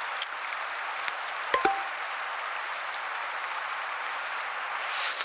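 Steady rushing hiss of rippling river water, with a few sharp clicks about a second and a half in and a brief louder hiss near the end.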